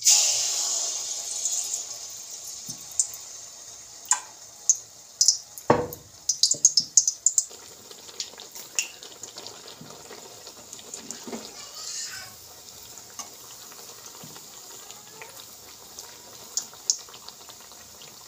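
Pitha batter of ground rice and flour hitting hot refined oil in an aluminium kadai. A sudden loud sizzle settles over a few seconds into a steady, quieter frying sizzle. Sharp crackles and pops come in the middle, with a single knock about six seconds in.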